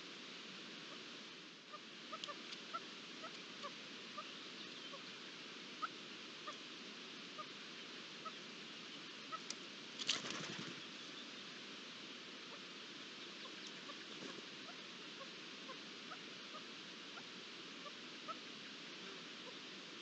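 Outdoor ambience with faint short chirps recurring every second or so, and a brief flurry of bird wings flapping about halfway through.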